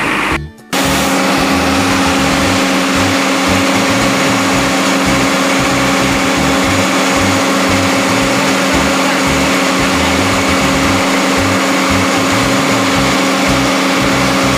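Komatsu PC200-8MO excavator's diesel engine running steadily with a rough low pulse, heard close up under the machine at the crankcase breather tube during a blow-by check. The sound breaks off briefly about half a second in.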